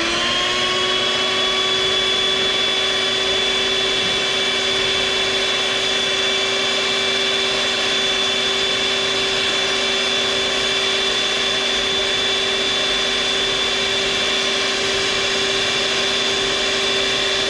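Small electric stand mixer's twin beaters running at a steady speed through pancake batter in a stainless steel bowl: a steady motor whine that comes up to speed at the very start.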